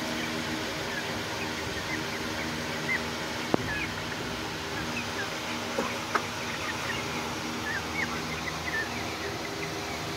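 A flock of young Light Sussex chickens, about nine weeks old, cheeping in many short high calls throughout, over a steady low hum. A sharp click stands out about three and a half seconds in, with a softer one near six seconds.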